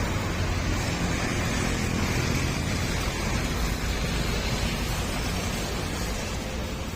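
Rusi Classic 250 motorcycle engine running steadily through a universal M4 aftermarket exhaust muffler, with no revving or change in pitch.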